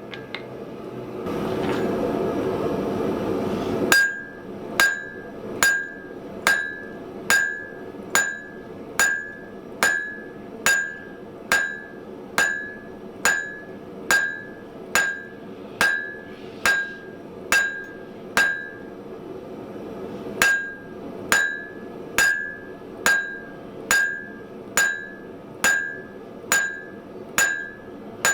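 A hand hammer strikes hot steel on an anvil in a steady rhythm, a little more than one blow a second, each blow leaving a short high ring. The hammering starts after a few seconds of rushing noise, and pauses briefly past the middle.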